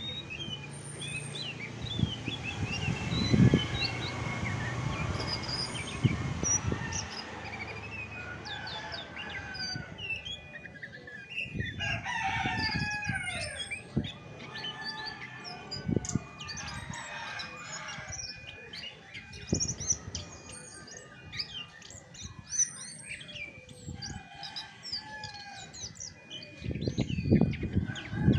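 Chestnut-backed thrush singing a long, varied song of quick chirps, whistles and short slurred notes, over soft low thuds that grow louder near the end.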